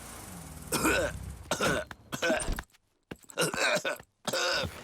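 A cartoon bear character's voiced cough: four separate coughing bouts from a character sick with a cold.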